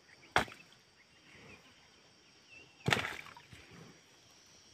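Two sharp knocks about two and a half seconds apart, the second trailing off in a short rattle, over a quiet outdoor background with a few faint short chirps.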